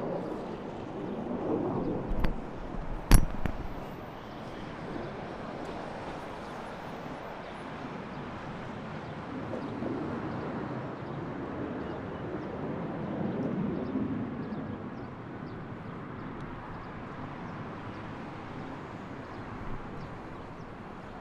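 Steady outdoor background noise with no siren tone, broken by a faint click about two seconds in and a sharp knock about three seconds in.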